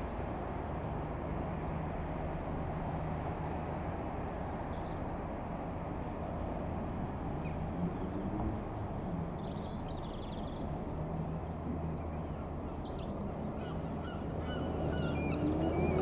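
Birds calling in short high chirps over a steady low hum.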